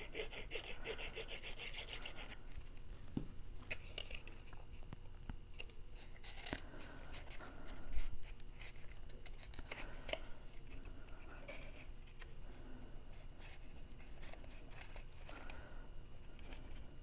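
Cardstock being handled and pressed together: light paper rustling and scraping with scattered small clicks, and one louder knock about eight seconds in.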